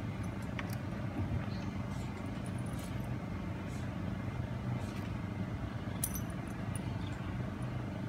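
Outdoor background with a steady low rumble and a few faint clicks, no harp notes yet.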